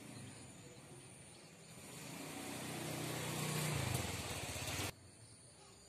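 A motor vehicle's engine running and growing louder, its pitch dropping a little near the end, then cut off abruptly about five seconds in.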